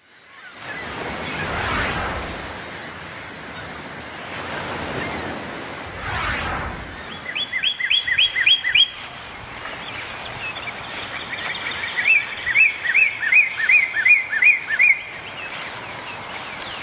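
Small stream babbling steadily, with a songbird singing two quick runs of the same chirped note repeated about four times a second, one near the middle and a longer one later.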